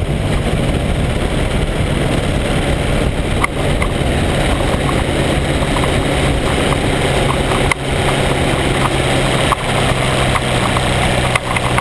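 Microlight trike's engine running steadily at low power while the trike rolls over grass, its low drone easing slightly lower in pitch over the stretch. Wind noise and a few short clicks on the wing-mounted camera's microphone.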